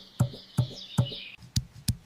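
Rhythmic knocking, about two and a half knocks a second, each with a dull low thud, over a high chirping background that stops a little over a second in; near the end the knocks turn sharper and quicker.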